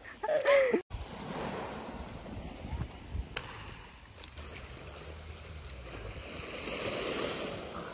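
Small waves washing onto a pebble shore, with a low wind rumble on the microphone. A man's brief shout comes in the first second.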